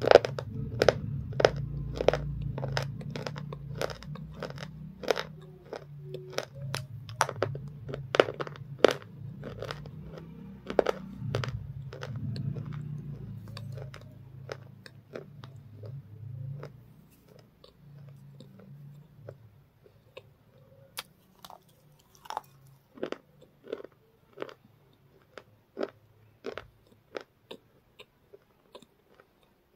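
Close-up biting and chewing of brittle, flaky pieces, with sharp crunches about twice a second. After the first half the crunches come more sparsely.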